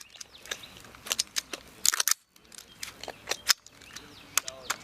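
Irregular sharp metallic clicks and clacks of rifles being loaded and made ready, as magazines are handled and bolts worked.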